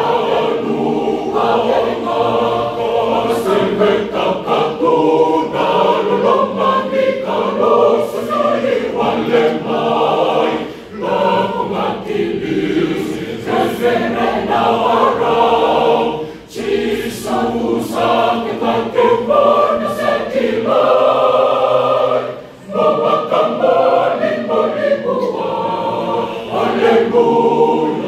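Large mixed choir of men and women singing a hymn in parts, with three short breaks between phrases.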